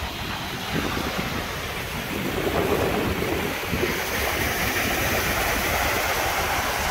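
Waves breaking and washing up onto a stony shore, with wind buffeting the microphone as a low rumble.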